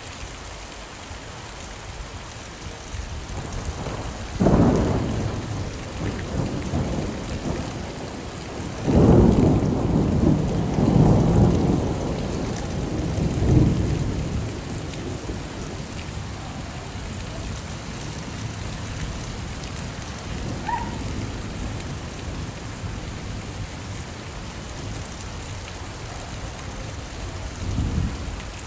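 Steady rain falling, with thunder rumbling: a rumble about four seconds in, a longer rolling spell from about nine to fourteen seconds, and a faint one near the end.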